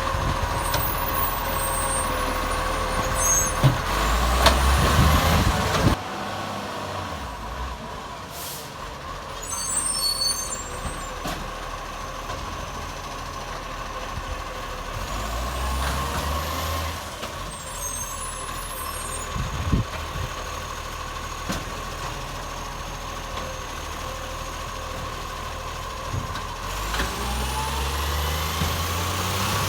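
ACCO side-loader garbage truck working a street, its diesel engine revving up in three surges about ten seconds apart, each with a rising whine, as the arm cycles through bin lifts. Air brakes hiss in between. The engine is made loud by an exhaust leak.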